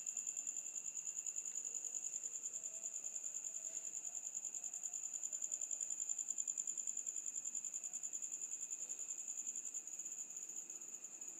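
Crickets chirping continuously: a steady, high-pitched, rapidly pulsing trill.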